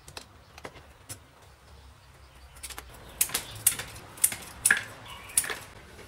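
Scissors snipping a thin wooden strip crosswise into short pieces. After a few light clicks in the first second, there are about five sharp snips, roughly one every half second, in the second half.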